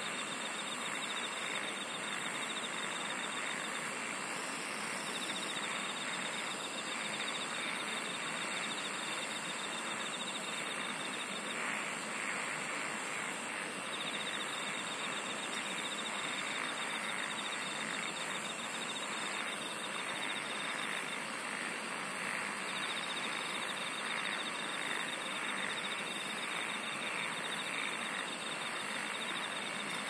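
Insects singing in a dense, steady chorus. A continuous high-pitched buzz sits under a shrill pulsing layer. A trill sounds in stretches of several seconds and breaks off between them.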